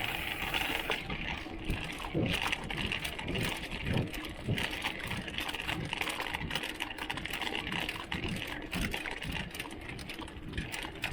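Water bottle rattling in its bicycle bottle cage while a mountain bike rides over rough trail: a continuous run of irregular clicks and knocks, with bumps and tyre noise underneath.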